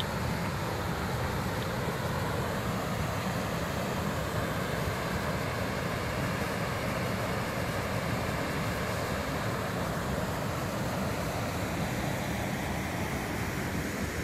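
Steady rushing roar of water pouring over a small rocky waterfall and rapids on a river.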